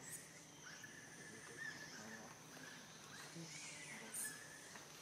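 Faint, thin squeals from a baby long-tailed macaque, sliding up and down in pitch, as an older monkey holds it down, over a steady high insect drone.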